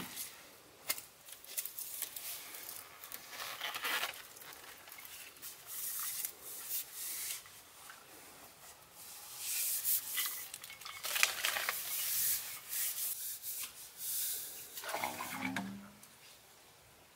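Handling noises: a plastic PVC pipe scraping and knocking as it is fitted onto a small portable water pump, mixed with rustling of leaves and grass underfoot, in irregular bursts. A short low creak comes near the end.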